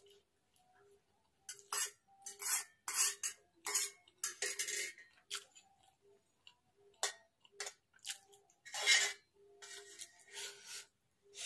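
A fork scrapes and clinks against a steel plate while noodles are slurped and chewed close to a clip-on microphone. The sounds come as an irregular string of short noisy bursts.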